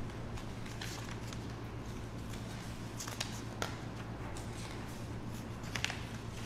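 Quiet room with a steady low hum, broken by scattered soft rustles and clicks of paper being handled and pens writing on a table.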